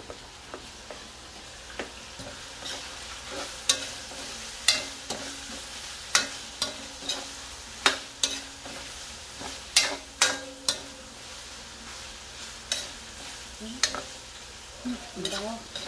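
Ground beef and sliced hotdogs sizzling in a metal wok while a metal spoon stirs them, with a steady hiss and irregular sharp clinks and scrapes of the spoon against the pan.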